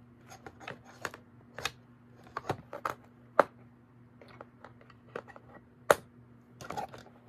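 Plastic toy packaging being handled and cut free: irregular sharp clicks and snaps, the loudest about halfway through and near the end.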